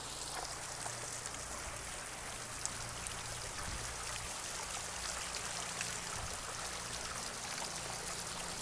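Steady splashing and trickling of overflowing urn fountains: water welling up through the tops of stacked-stone urns and spilling gently down their layered sides.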